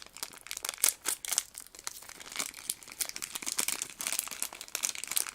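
Plastic blind-bag packet being crinkled and torn open by hand: a dense run of irregular crackling and rustling.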